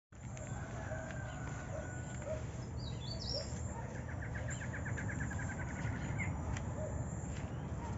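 Wild birds calling: short high rising notes about three seconds in, then a fast trill of about twenty notes lasting about two seconds, with scattered short lower calls, over a steady low rumble.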